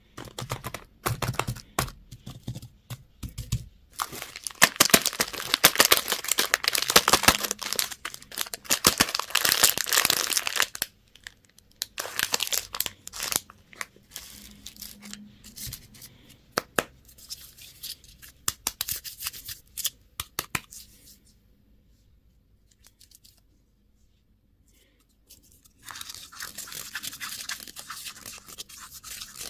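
Plastic candy wrappers being torn open and crinkled: long stretches of crackling rustle full of sharp little clicks, then scattered crackles, a short lull, and more crinkling near the end.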